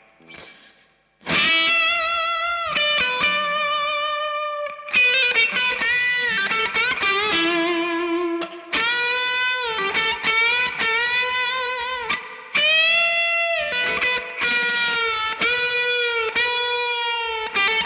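Overdriven electric guitar played through a Marshall JCM2000 DSL100 valve amp head on its overdrive channel with the reverb turned up. Sustained lead notes with vibrato and bends begin about a second in. An odd distortion is heard in it, which the repairer takes for some kind of intermodulation, maybe the reverb return overdriving.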